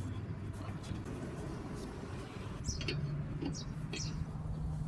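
A few light metal clicks as a ball joint separator is wrenched tight on the upper control arm's ball joint, over a steady low hum.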